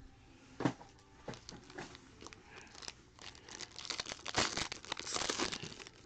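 Foil wrapper of a trading-card pack crinkling and tearing as it is opened by hand: scattered crackles at first, then denser crinkling about four seconds in.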